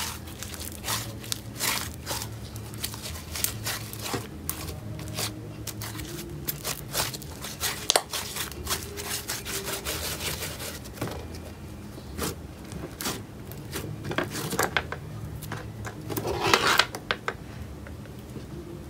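Pink cloud slime mixed with instant snow being kneaded and stretched by hand: a run of irregular crackles, ticks and soft tearing sounds as the fluffy slime pulls apart, with a louder crackling cluster near the end.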